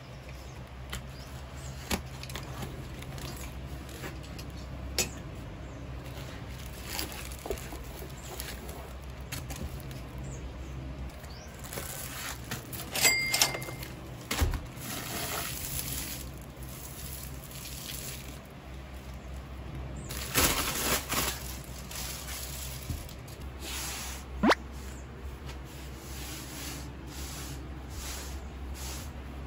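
Hands unpacking a rolled desk pad from a cardboard box on a wooden desk: cardboard and paper rustling and scraping, with scattered sharp clicks and knocks and a low thump about midway, over a steady low hum.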